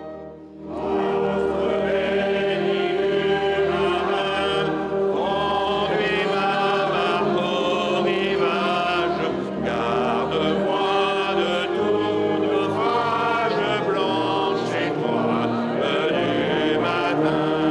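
A congregation singing a traditional hymn to the sea together, accompanied by a wind band with clarinets, saxophones and low brass. The singing begins about a second in and carries on steadily.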